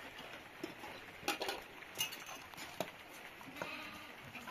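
Sheep and lambs bleating, with a few sharp knocks.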